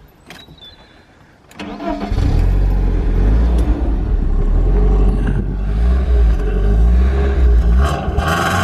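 1997 BMW Z3's engine cranked on the starter and catching about two seconds in, then idling steadily with a deep rumble. Near the end the revs rise.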